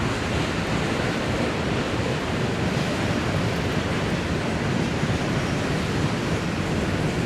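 Steady rushing noise of a freight train rolling past, its wheels running on the rails.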